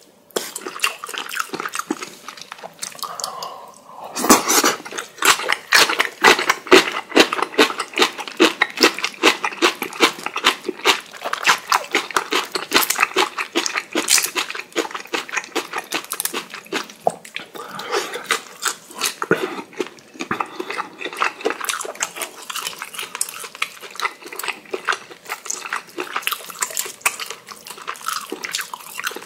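Close-miked eating sounds: wet chewing of kimchi and the crackle of cooked shrimp shells being peeled by hand. A dense run of sharp wet clicks starts about four seconds in and keeps going.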